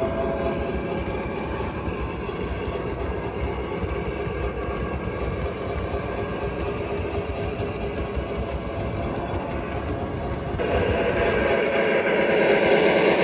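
O-gauge model coal hopper cars rolling over three-rail track: a steady rumble and clatter of metal wheels. About ten and a half seconds in the sound jumps louder and brighter as the Lionel PRR 2-8-8-2 steam locomotive runs close by.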